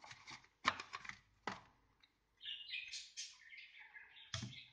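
Cardboard packaging and a plastic waterproof camera case being handled: light rustles and clicks, a longer scraping stretch in the middle, and a sharper knock a little past four seconds.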